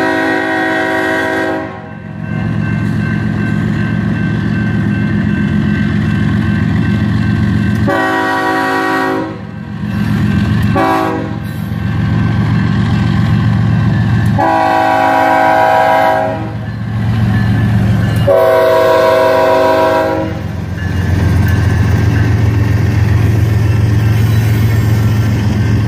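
BNSF freight train's diesel locomotive multi-chime air horn sounding five blasts for a grade crossing: long, long, short, long, long. Underneath, the diesel engines run with a steady low rumble that grows louder near the end as the locomotives pass.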